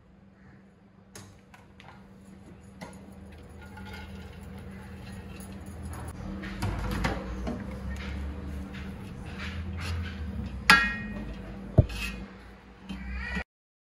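Cooking-utensil handling: boiled rice tipped from a plastic colander into a pot and spread with a spatula, with scattered clinks and knocks against the pot over a steady low hum. Sharp clatters come about ten and a half and twelve seconds in, and the sound cuts off suddenly near the end.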